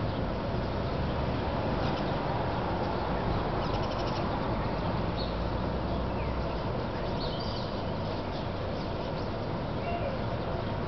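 Steady low city hum, with a few faint short bird chirps scattered through it.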